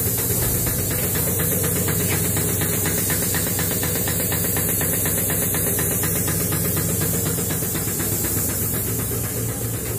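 Lube truck's grease pump running after being switched on, with a steady hiss over a low hum and a fast, even rattle.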